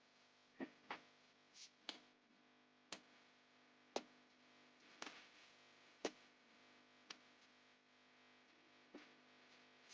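Faint sharp clicks or taps over a low steady hum, about one a second for most of the stretch, with a quick pair near the start.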